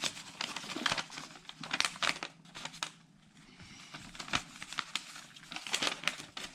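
Crinkling and rustling of a smart light switch's packaging and paper instruction sheet being handled, in short irregular crackles that ease off for a moment about halfway through.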